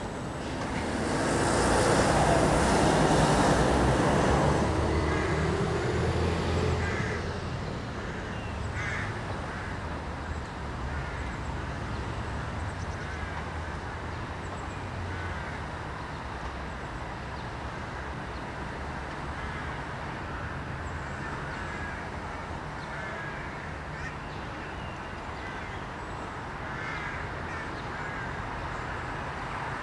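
A road vehicle passing close by with tyre hiss, swelling and fading over about six seconds. Then a steady hum of distant traffic, with occasional bird calls.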